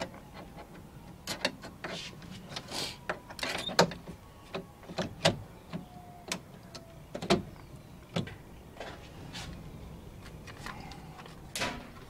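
Plastic interior door handle housing of a 1999 Chevy Tahoe clicking and knocking as it is pushed and wiggled into the door frame, its tabs catching against the frame. The clicks are irregular and sharp, with a few louder knocks.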